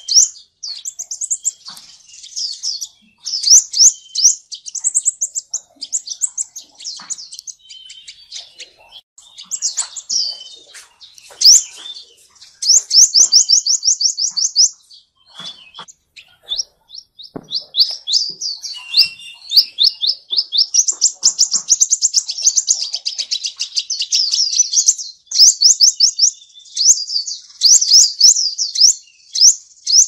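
Sunbird song: rapid high-pitched trills of quick down-slurred notes, in runs of one to three seconds with short pauses between.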